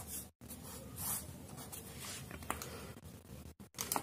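Pen scratching on paper in a few short strokes, drawing a box around a written answer.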